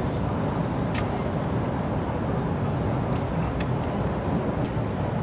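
Steady low rumbling outdoor noise at an even level, with a few faint clicks.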